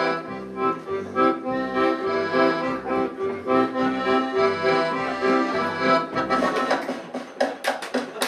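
Accordion playing a lively tune with held, reedy chords, over plucked double-bass notes that step along underneath. Near the end a quick run of sharp percussive hits comes in.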